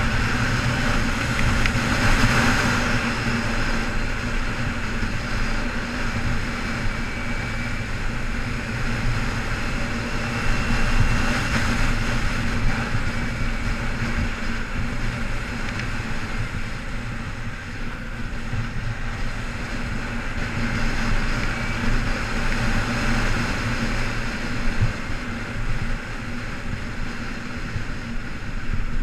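A 2008 Kawasaki Ninja 250R's parallel-twin engine running steadily while riding at low speed, with wind rushing over the microphone.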